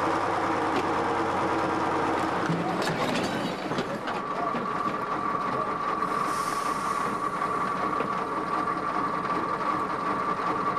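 Box truck's engine running under load as it tows another truck on a cable, with a few knocks in the first three seconds and a steady high whine from about four seconds in.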